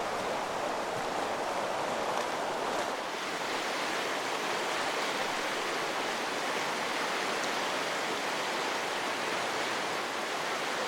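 Mountain creek rushing over lava rocks: a steady, even rush of flowing water.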